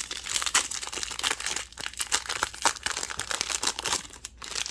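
Foil booster-pack wrapper crinkling as it is torn open and handled: a dense, continuous crackle.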